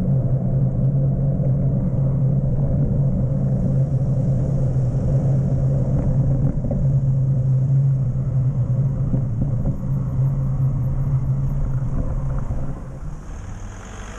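Steady rumble of wind buffeting a bike-mounted camera's microphone, with bicycle tyres rolling on pavement, fading down about a second before the end as the bike slows at the crossing.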